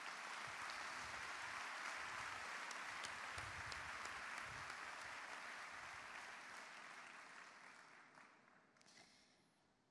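Crowd applauding, a steady mass of hand-clapping that fades away over the last few seconds.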